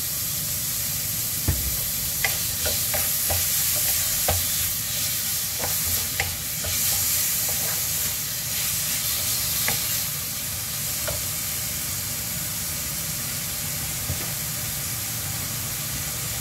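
Sliced chicken breast and onions frying in a stone-coated wok, sizzling steadily. A wooden spatula scrapes and taps against the pan as it stirs, with the taps stopping after about ten seconds and the sizzle going on alone.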